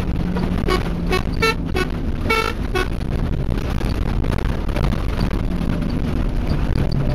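A truck's horn sounding about six short toots, one a little longer, at camels crossing the dirt road ahead, over the steady rumble of the truck's engine and its tyres on gravel.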